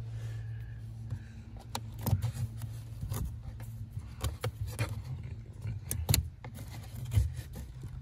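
Irregular plastic clicks and scrapes from corrugated wire loom and connectors behind a car's interior fuse box being handled, a dozen or so sharp ones, loudest about two seconds in and around six seconds in, over a steady low hum.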